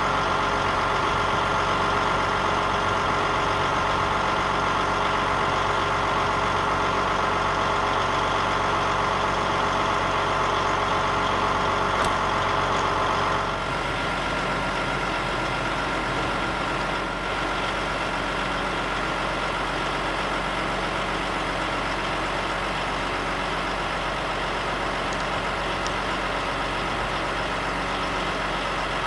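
A heavy diesel engine idling steadily. About halfway through the sound shifts, a little quieter and with less of its low hum.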